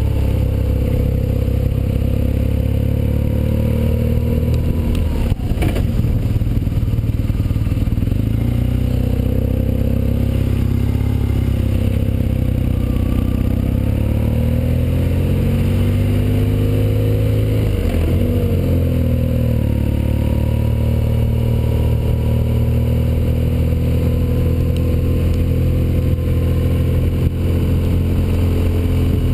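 BMW R1200GS motorcycle's boxer-twin engine running under way. Its note falls and climbs again a few times, most clearly about five and eighteen seconds in.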